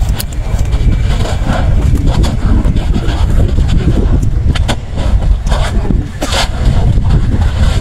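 Lava vent spattering and fountaining: a deep, steady rumble with irregular crackling bursts about once a second, the loudest about six seconds in.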